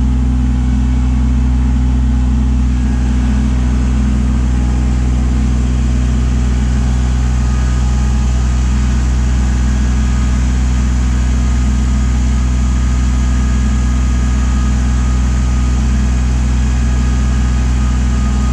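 Kubota LX2610 compact tractor's diesel engine running steadily at constant speed.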